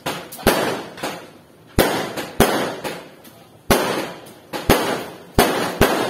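Fireworks going off: about ten sharp bangs at uneven intervals, each followed by a rumbling echo that dies away.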